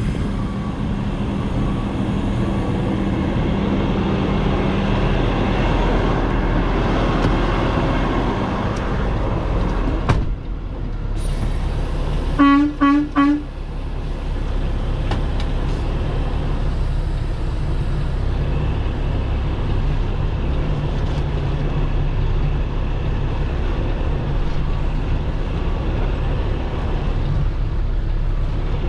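Heavy tow truck's diesel engine running steadily as the rig maneuvers, first heard from outside beside the trailer, then from inside the cab. About halfway, a horn gives three short toots.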